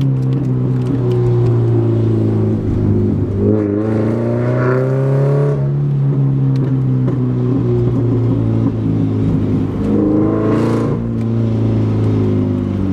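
Subaru BRZ's flat-four boxer engine, running through a catless front pipe, pulling steadily while driving; its note climbs a little and falls back twice. The exhaust is loud, a tone the owner finds worst in the lower gears.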